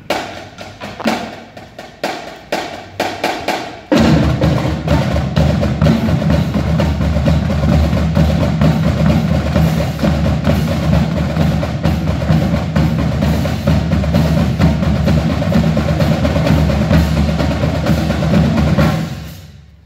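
Marching drumline of snare and bass drums playing: a few separate sharp hits for the first four seconds, then the full line comes in loud and dense, and the playing dies away about a second before the end.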